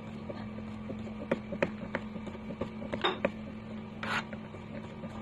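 Kitchen knife slicing a green gourd into rounds on a cutting board: a few irregular sharp clicks as the blade meets the board, over a steady low hum.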